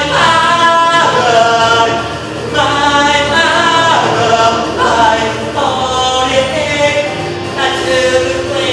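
Unaccompanied singing through a microphone: long held vocal phrases of a second or two each, sliding between pitches.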